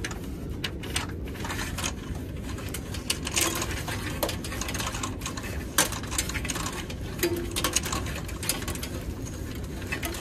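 Steel customs (TIR) cable being pulled by hand through the metal eyelets along a curtainsider trailer's side, clicking, scraping and rattling irregularly over a steady low hum.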